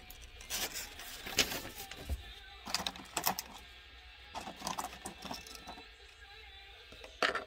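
Light clicks and taps of a clear plastic blister tray being handled as small kit parts are picked out of it, in several short clusters, the sharpest near the end.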